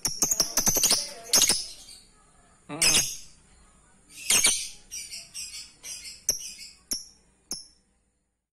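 Caged lovebird chirping: a quick series of short, high-pitched chirps and sharp, shrill calls, stopping about a second before the end.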